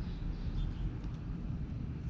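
Steady low rumble of wind buffeting the microphone, with a faint short high chirp about half a second in.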